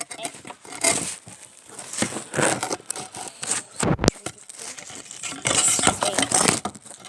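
A sticky flour-and-slime mixture being stirred and worked, making irregular bursts of crackling noise.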